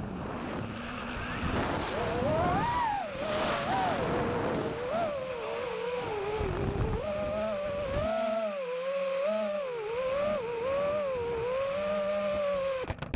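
FPV racing quadcopter's motors whining, the pitch climbing and dropping again and again as the throttle is worked. The whine cuts off suddenly near the end.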